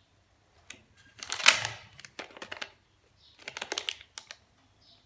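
Plastic sweet packets crinkling and clicking as they are handled, in three short spells of crackling, the first, about a second in, the loudest.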